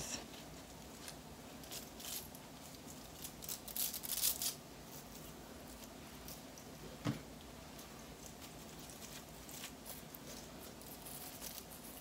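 Velcro hair rollers being pulled out of locs: short, scratchy rustles as the rollers drag free of the hair, loudest a few seconds in. One soft knock about seven seconds in.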